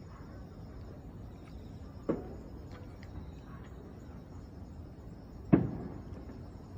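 Fireworks shells bursting: two booms about three and a half seconds apart, the second louder with a short rumbling tail, and a fainter one near the end. Steady insect chirring runs high underneath.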